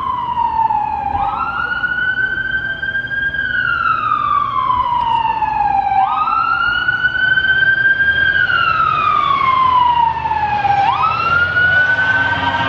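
Emergency vehicle siren wailing: each cycle jumps up quickly, then glides slowly down over about five seconds, repeating about two and a half times, over a low steady rumble.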